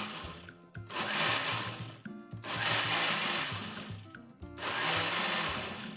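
Personal cup blender pulsed three times, each burst of its motor and blade running a second or two with short breaks between, as it purees overripe banana without added water.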